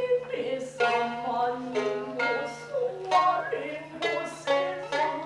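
Futozao shamisen accompaniment for the puppet play: a run of sharply plucked notes, each ringing and dying away, several a second, with pitch moving between notes.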